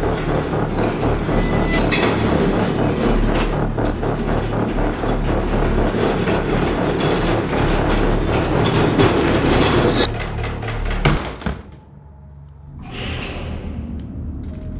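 Loaded wooden hand cart rattling and clattering as it is rolled over a concrete floor. About ten seconds in the rattle breaks off with a thud, the sound drops away, and a short whoosh follows.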